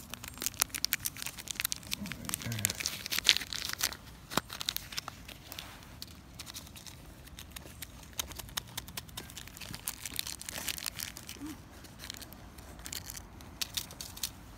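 Crinkling and crackling of tin foil wrapping and a small plastic zip-lock bag being handled and opened by hand, thickest in the first four seconds and then coming and going.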